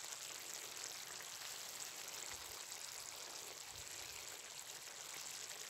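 Faint, steady sizzling and bubbling of a tomato sauce with chicken simmering in a wide steel pan over a campfire.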